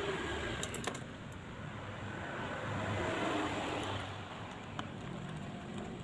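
A few light clicks of a small screw and precision screwdriver on an aluminium second-HDD caddy, over a steady background rumble that swells about three seconds in.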